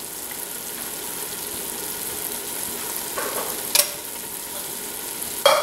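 Sautéed vegetables, drained Rotel tomatoes and condensed cream of chicken soup sizzling in a stockpot on the stove, a steady hiss. Two short knocks sound over it, one about four seconds in and one near the end.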